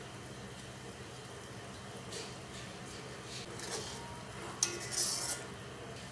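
A metal spatula stirring simmering curry in a metal kadhai, with light scrapes against the pan and a louder scrape about five seconds in, over a faint low hum.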